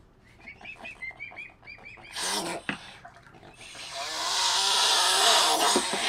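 Swan cygnets peeping: a quick run of short, high whistled calls, about five a second, in the first two seconds. From about four seconds in, a loud rushing noise takes over.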